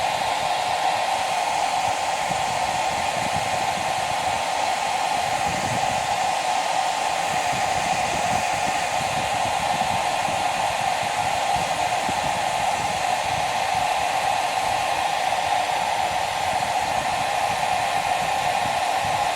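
Handheld hot-air blower running steadily on its lowest setting, a constant whooshing with a whine in the mid range, heating an LG G6's glued rear glass panel to soften the adhesive.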